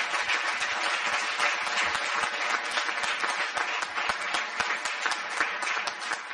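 Audience applauding, a dense steady clatter of many hands clapping.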